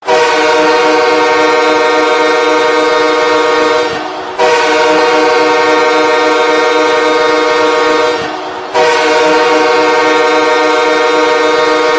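The Kings' hockey goal horn sounding three long blasts of about four seconds each, one after another, each a steady chord of several tones.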